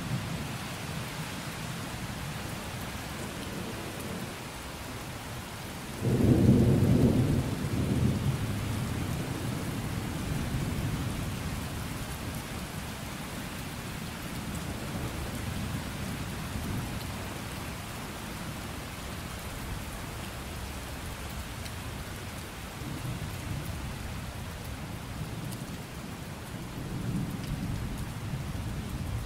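Steady rain with thunder: a sudden loud crack of thunder about six seconds in that rumbles away over several seconds, and softer low rumbles of thunder near the end.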